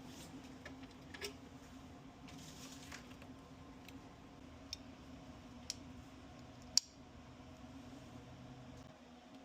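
Low steady hum with a few small sharp clicks scattered through it, the sharpest about seven seconds in.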